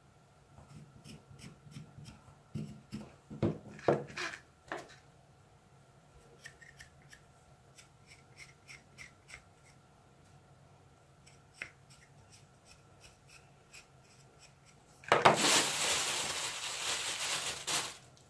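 Knife scraping and carving a small white doll joint part by hand, a run of short scrapes and clicks with the strongest strokes about four seconds in. About fifteen seconds in, a plastic bag crinkles loudly for about three seconds.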